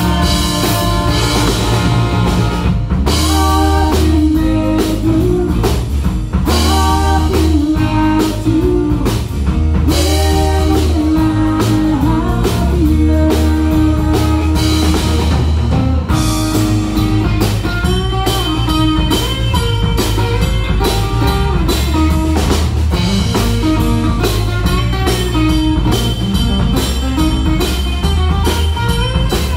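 Live rock band playing: electric guitar, bass guitar and drum kit driving a steady rock beat, with a woman singing lead into a microphone for much of it.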